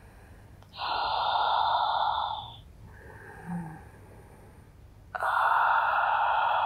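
A woman's audible breaths close to the microphone: two long, slow breaths, the second starting about five seconds in and running longer, paced with a Pilates rotation.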